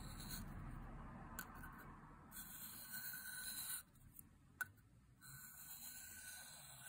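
Faint scraping of a steel divider point being drawn and rotated along a 1000-grit ceramic sharpening stone. It pauses for about a second after roughly four seconds, with a single light tick in the pause.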